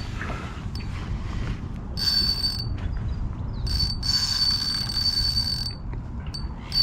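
Daiwa Freams spinning reel's drag buzzing as a big hooked fish pulls line off against a heavily set drag: a short burst about two seconds in, then a longer run of about two seconds. A low rumble of wind and water runs underneath.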